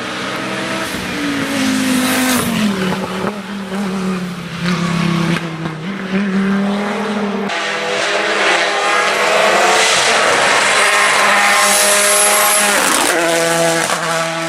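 Hill-climb race car engine under hard acceleration, its pitch rising and dropping with gear changes and braking, with some tyre squeal. The sound changes abruptly about seven and a half seconds in.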